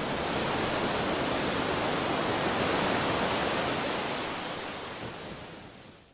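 Steady rushing noise, even across low and high pitches, swelling a little midway and then fading out over the last second and a half.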